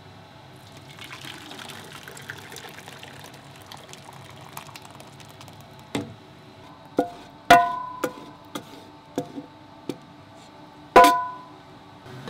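Restaurant kitchen work: water runs briefly, then utensils and dishware clink and clank in a series of sharp knocks. The two loudest strikes ring on with a clear metallic tone.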